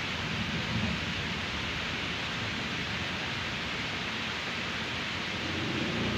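Steady hiss of water splashing from the pond's aerator sprays, over a low rumble.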